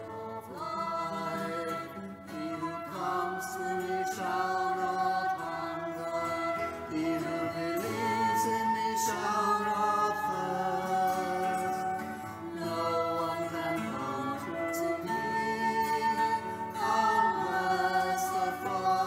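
Slow Communion hymn, sung with long held notes that step from one pitch to the next every few seconds.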